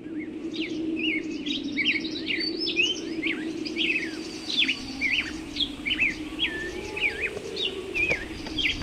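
Small birds chirping and singing, a quick run of short calls one after another, over a steady low hum.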